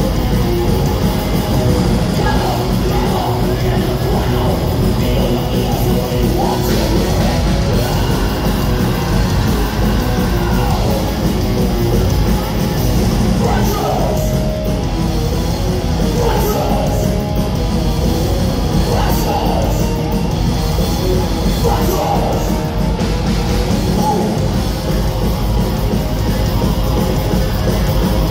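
Thrash metal band playing live and loud: distorted electric guitars, bass and drums, with shouted vocals at intervals.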